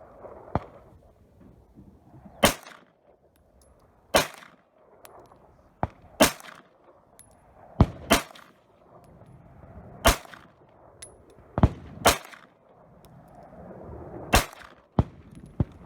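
Walther P38 9 mm pistol fired slowly, one loud shot about every two seconds, about seven in all, each with a short ring. Quieter sharp cracks fall between them.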